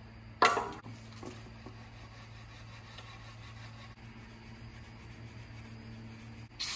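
Short hiss of an aerosol parts cleaner sprayed about half a second in, and again at the very end. Between the two, faint scrubbing under a steady low hum.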